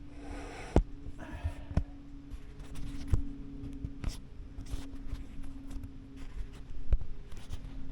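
Handling noise as the camera is pushed up under the furnace's stones: scattered knocks and clicks with short scraping rustles, over a faint steady hum.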